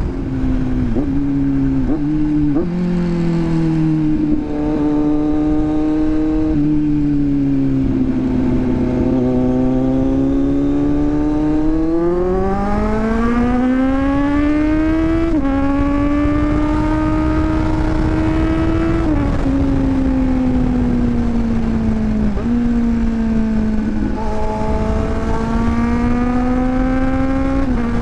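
Inline-four sport motorcycle engine heard from the rider's seat under way, with the revs climbing and dropping through gear changes. A long pull rises from about twelve seconds in and ends in an upshift, the revs sink back for a few seconds, then climb again near the end. Wind rush runs underneath.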